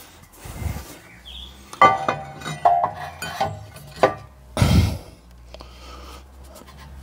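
New rear brake disc, a combined disc and handbrake drum, being worked onto the van's hub over the handbrake shoes: metal clinks, scrapes and knocks, some of them ringing briefly.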